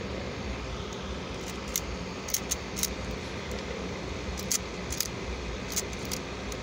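Small sharp plastic clicks, about nine, irregularly spaced, as the roof-mounted Mech Tech weapon on a Transformers Deluxe Class Roadbuster toy car is handled and moved, over a steady background hum.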